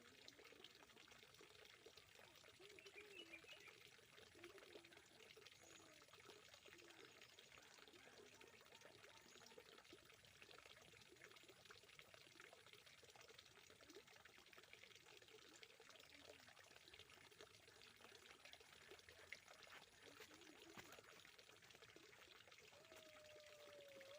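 Faint, steady trickling of water, like water pouring into a pond.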